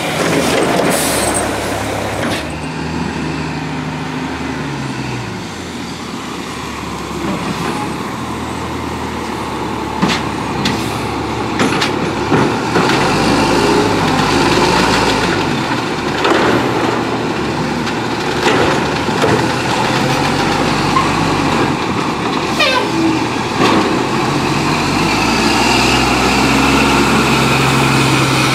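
Mack LE garbage truck with an automated side loader, its diesel engine running and changing pitch as it moves on chained tires over a snowy street, with scattered sharp clanks. An air-brake hiss in the first two seconds cuts off suddenly, and the truck gets louder as it passes close near the end.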